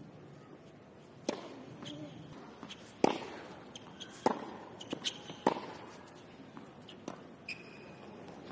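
Tennis rally on a hard court: sharp pops of racket strings hitting the ball and the ball bouncing, roughly every second or so, the loudest about three seconds in, with a few short high squeaks between the shots.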